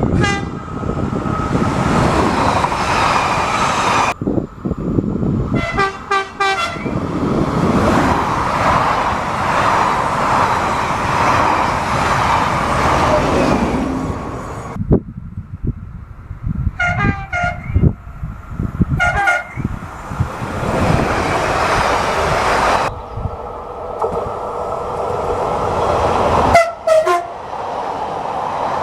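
Train horns sounding a series of short blasts, some in quick pairs, over the loud rumble and rail noise of passing trains, in separate recordings cut abruptly one after another.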